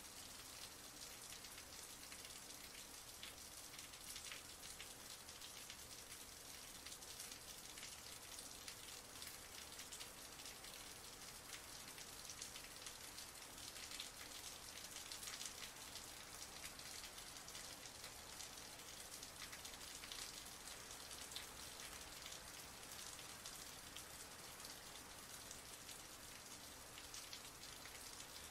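Heavy rain falling steadily: an even, hissing patter of countless drops, mostly high-pitched, with no change throughout.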